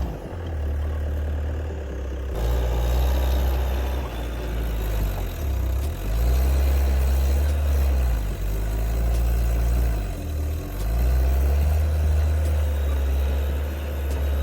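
A heavy machine's diesel engine running, its speed rising and falling several times.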